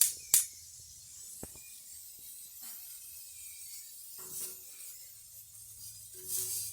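Two sharp knocks right at the start, then a single click and faint scattered handling clicks and rustles over a low hum.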